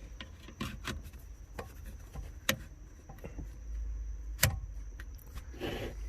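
Hands working wires and a crimp connector while splicing car speaker wire into factory woofer wiring: scattered sharp clicks and rubbing. The sharpest clicks come about two and a half and four and a half seconds in, with a short rustle near the end.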